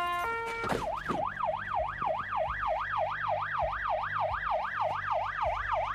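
Electronic siren in a fast yelp, rising and falling nearly three times a second, starting under a second in and running steadily until it cuts off just after the end.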